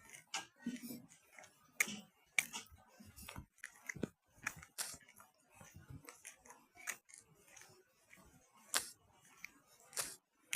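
Faint, scattered clicks and light taps at an uneven pace, a few each second.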